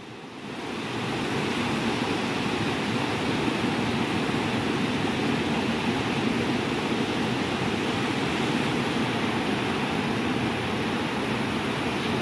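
Ocean surf: small waves breaking and washing up over a sandy beach, a steady rushing wash that fades in over the first second and then holds level.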